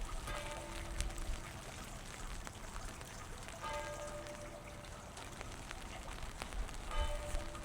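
Steady rain falling on wet pavement. A short pitched tone sounds three times, about three seconds apart, each lasting about a second.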